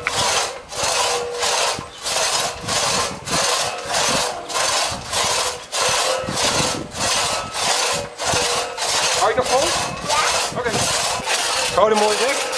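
Two-man crosscut saw cutting through a log on a wooden sawbuck, pulled back and forth by hand. It rasps in a steady rhythm of about two strokes a second.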